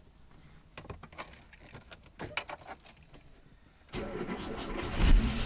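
Ignition key jingling with a few light clicks, then the starter cranks about four seconds in and the ZAZ Tavria's MeMZ-245 four-cylinder engine catches and runs near the end.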